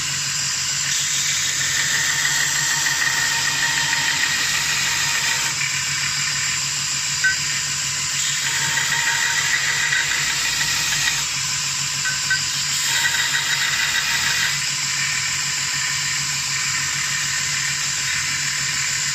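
Belt sander running steadily while the steel jaws of a pair of splitting pliers are ground against the abrasive belt. The grinding comes in several passes, each one louder and hissier than the belt running alone.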